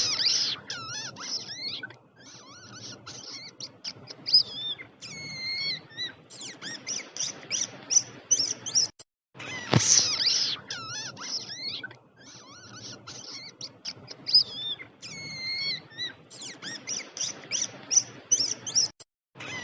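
Rat squeaking: fast runs of short, high-pitched squeaks, some gliding up and down, over a faint hiss. About halfway through there is a short gap and a click, and the same sequence of squeaks starts over.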